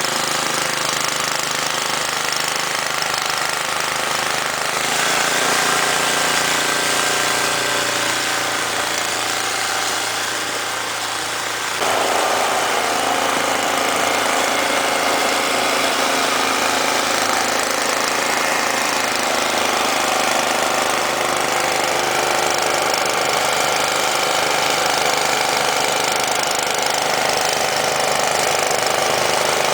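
Toro Powershift 1028 snowblower's 10 hp Tecumseh Snow King OHV engine running steadily. Its tone shifts about five seconds in and changes suddenly about twelve seconds in.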